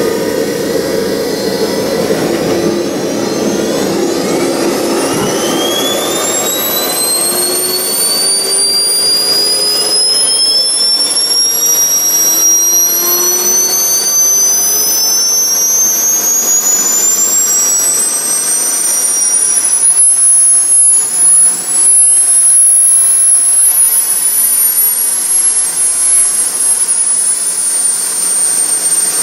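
JetCat P100-RX model jet turbine running in the nacelle of an RC Boeing 777. Its whine climbs steadily in pitch for about fifteen seconds as it spools up, grows louder, then holds high and eases down slightly near the end.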